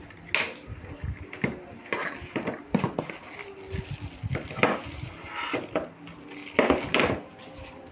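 Irregular knocks, clicks and clatter of hard objects being handled, about a dozen sharp hits spread unevenly, the loudest near the end.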